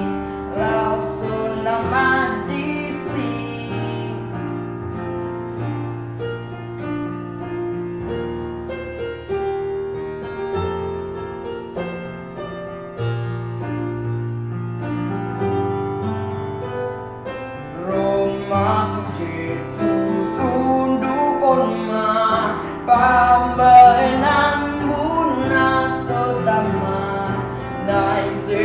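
A boy singing a song over a piano or keyboard accompaniment. The voice drops out for an instrumental passage through the middle and comes back about two-thirds of the way in.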